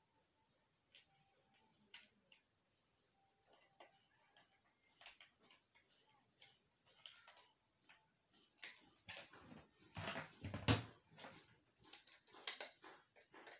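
Faint clicking and scraping of plastic as a small screwdriver works at the hub of a foldable three-blade LED bulb. Scattered at first, the clicks grow denser, with handling knocks about two-thirds of the way through.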